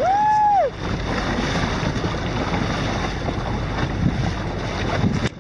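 Wind buffeting the microphone over water noise from a boat underway, a steady rushing hiss. In the first second a short high whistle rises, holds and falls away. The noise drops suddenly near the end.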